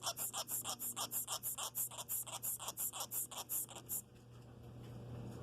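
Baby sugar glider making a rapid series of short, hissy clicks, about six a second, calling to its mother; the string stops about four seconds in.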